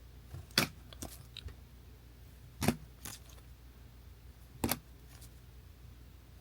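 Sports trading cards being handled and set down one at a time, giving about five sharp clicks and slaps spread a second or two apart.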